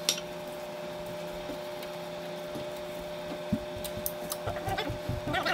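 Chicken wings being turned over on a metal rack pan: a sharp click at the start, then scattered light knocks and clicks about three seconds in. A steady electrical hum runs underneath.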